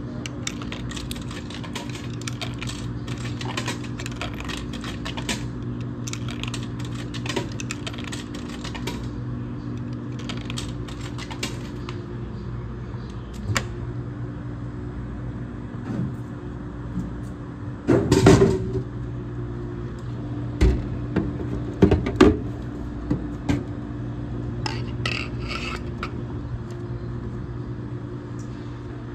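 Coins fed one after another into a Dixie Narco 501E soda machine's coin mechanism, clicking and rattling through the first third. A loud clunking clatter comes a little past halfway as the selection vends and the drink drops into the delivery bin, followed by a few more knocks and clicks. A steady low hum runs underneath.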